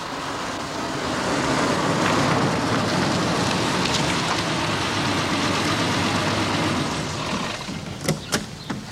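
A car driving, its engine and tyre noise growing louder over the first couple of seconds, holding, then fading after about seven seconds. Two or three sharp clicks follow near the end.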